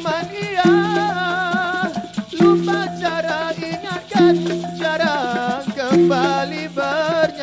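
Dikir barat music: a solo male voice sings a wavering, heavily ornamented melody into a microphone, over maracas and hand percussion. A low held note re-sounds about every second and three quarters.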